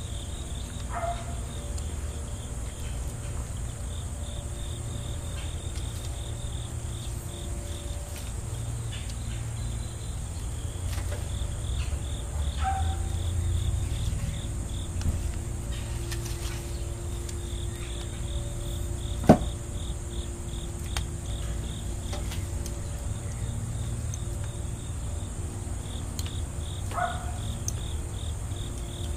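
Crickets and other insects chirping in repeated high pulses over a steady high buzz and a low rumble. Three brief falling squeaks come about a second in, around halfway and near the end, and there is one sharp click about two-thirds of the way through.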